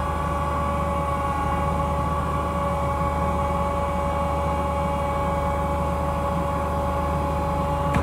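An engine running steadily at an unchanging speed, with a low hum and a few steady whining tones.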